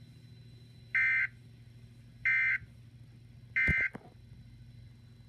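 Emergency Alert System end-of-message data bursts: three short, identical, buzzy digital chirps about 1.3 s apart, marking the close of the alert broadcast. A click sounds during the third burst.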